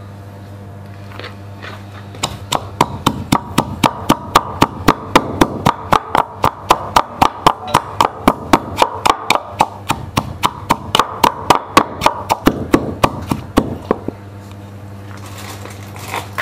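Stone pestle pounding chilies, garlic and salt in a wooden mortar: a steady run of dull strikes, about four a second, that starts about two seconds in and stops a couple of seconds before the end.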